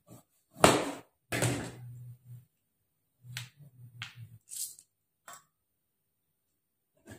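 Kitchen knife cutting calamansi on a plastic cutting board: a few sharp knocks, the loudest about a second in, then scattered lighter taps and handling sounds.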